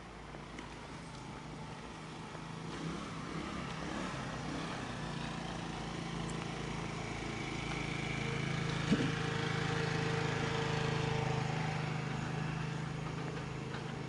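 A motor vehicle's engine humming as it passes, growing louder over several seconds, loudest about ten seconds in, then slowly fading. A single brief sharp click about nine seconds in.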